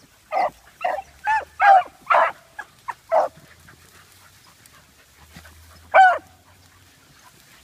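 Hunting beagle baying in short, pitched calls: a quick run of about eight in the first three seconds, then a single call near the end.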